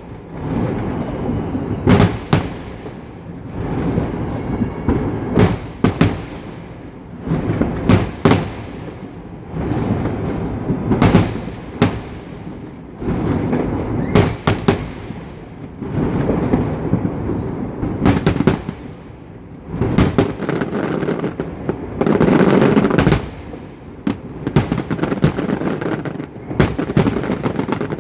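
Large aerial fireworks display: shell after shell bursting in sharp, irregular bangs, often two or three close together, over a continuous crackle that swells and fades between them.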